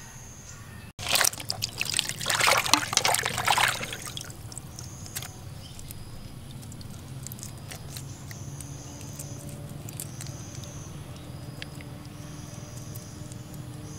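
Water splashing and sloshing in a plastic basin as hands wash raw shrimp, loudest for about three seconds near the start. After that come quieter handling and small clicks, with a high chirp repeating every second or two in the background.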